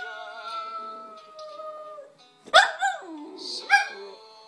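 Dog howling: one long drawn-out howl that slowly drops in pitch, then after a short break two more loud, wavering howls, the last trailing off near the end.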